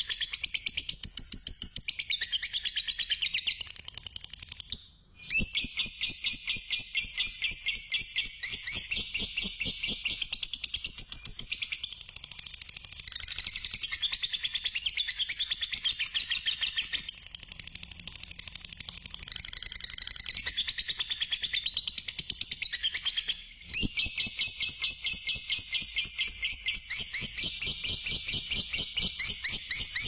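Fischer's lovebird giving its long 'ngekek' call: a rapid, shrill chattering trill of many notes a second, carried on in long unbroken runs that break off briefly about five seconds in and again around twenty-three seconds.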